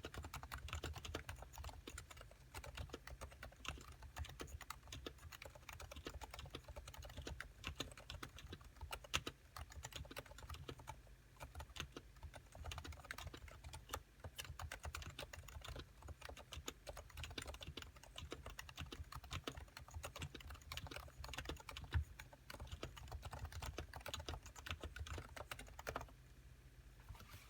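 Steady, fast typing on a factory-silenced Topre Realforce 87U keyboard with 45 g electrostatic capacitive switches and Type-S sliders: a dense run of soft keystrokes, a few hit harder. The typing stops near the end.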